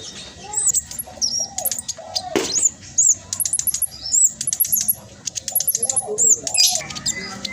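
Black sunbird singing a fast, dense run of high, thin chirps and quick sweeping notes, in close rapid-fire bursts.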